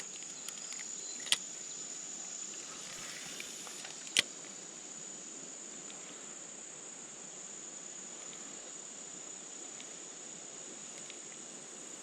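Steady high-pitched chorus of insects singing over faint outdoor background noise. Two sharp clicks stand out, about a second in and about four seconds in.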